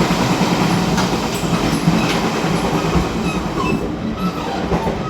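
Running noise at the gangway between a Chu-Kuang Express passenger coach and its baggage car on a moving train: a dense rumble with rattling and scattered clacks, getting a little quieter near the end.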